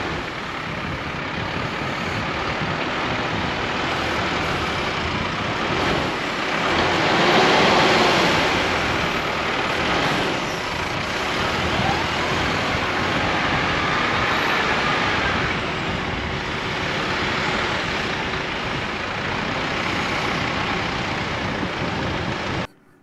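Massey Ferguson 5711 tractor's diesel engine running under load as its front loader digs into a dirt pile and lifts a bucketful of dirt, swelling louder about seven seconds in. The sound cuts off abruptly just before the end.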